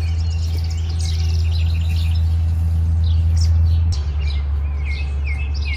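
Small birds chirping and twittering, with a quick series of repeated chirps near the end, over a loud, steady low hum that drops slightly in pitch about four seconds in.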